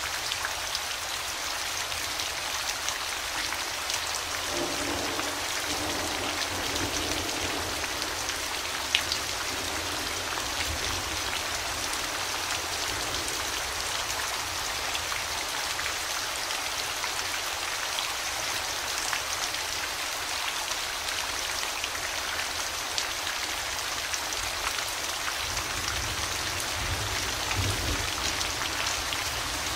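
Steady rain falling on hard surfaces, individual drops audible in the even hiss, with one sharp drop tick about nine seconds in.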